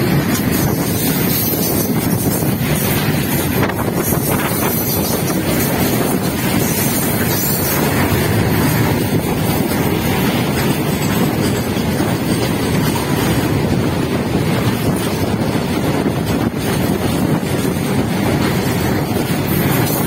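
A heavily loaded goods train of steel-laden flat wagons rolling past on the adjacent track: a loud, steady rumble of steel wheels on rail, with wind buffeting the microphone.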